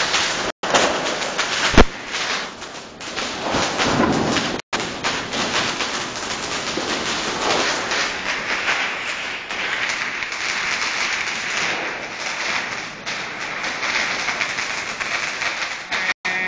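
Fireworks going off at close range: a dense crackling and hissing, with one sharp bang about two seconds in.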